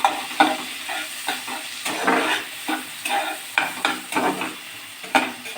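A spatula stirring and scraping onions and tomatoes frying in oil in a pan, with a steady sizzle under irregular scrapes several times a second, as they are browned.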